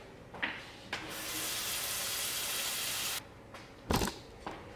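Kitchen tap running into a stainless saucepan for about two seconds and shut off sharply, then a knock as the pot is set down.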